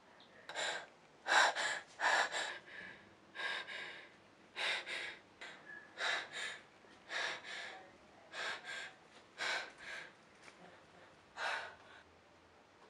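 A young woman's quick, panicked gasping breaths, roughly one a second and some coming in pairs, stopping near the end.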